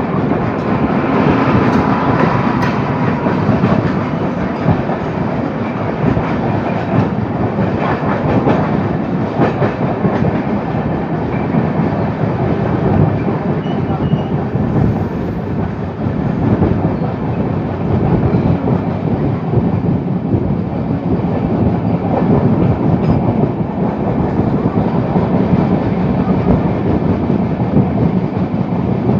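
Indian Railways trains at speed, heard from the window of a moving passenger coach. The coach's wheels rumble and clickety-clack over the rails, and a goods train of covered wagons rolls past close alongside on the next track.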